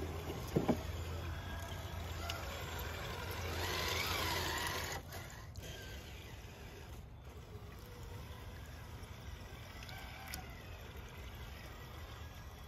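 Electric motor of an RC crawler truck (Castle 1412 3200KV brushless) whining as it drives through a shallow creek, with water splashing. The motor sound rises over the first few seconds and drops away about five seconds in, leaving the steady trickle of the stream.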